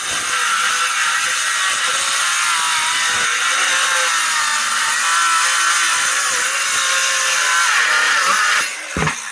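A power saw running and cutting through a wooden board with a steady, wavering whine for about nine seconds, then stopping near the end.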